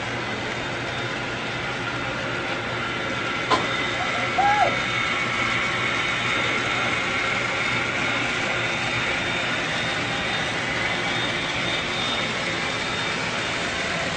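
HO-scale model trains running: a steady mechanical hum with faint whining tones. A sharp click comes about three and a half seconds in, and a brief squeak about a second later.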